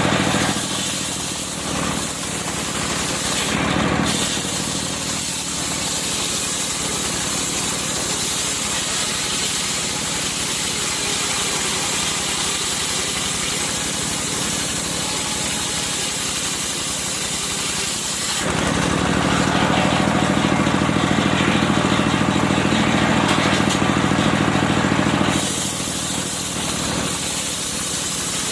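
Engine of a serkel circular sawmill running steadily while sawing wood. About two-thirds of the way through, its note grows louder and stronger in the low end for around seven seconds, then settles back.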